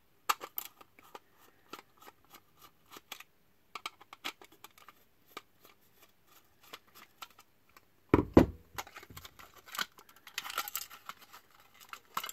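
Small screwdriver backing screws out of a plastic solar-lantern housing: a run of light clicks and scrapes. About eight seconds in comes a loud thump, then plastic parts rattle and scrape as the housing is pulled apart.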